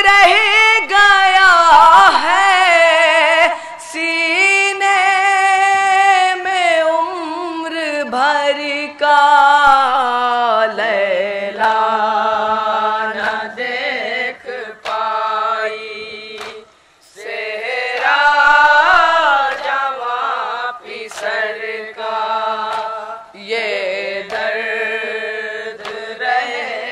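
Group of boys chanting a nauha, a Shia lament for the martyrs of Karbala, unaccompanied into a microphone, with long held and gliding vocal lines. The chanting breaks off briefly about 17 seconds in, then resumes.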